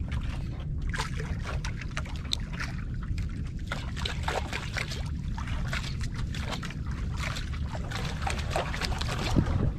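Sea water lapping and sloshing against a small outrigger fishing boat, over a steady low rumble, with many scattered small clicks and splashes.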